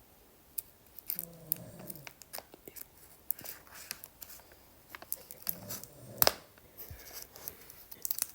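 Close-up handling of skincare products and their packaging: scattered clicks, taps and light crinkling, with one sharp click about six seconds in.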